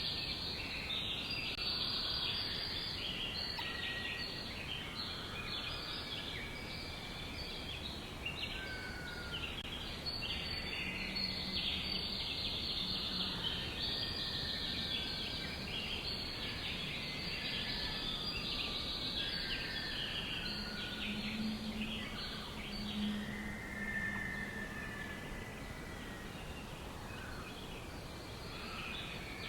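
A dense chorus of many small birds chirping and trilling at once, with the occasional longer whistled note standing out from the mass.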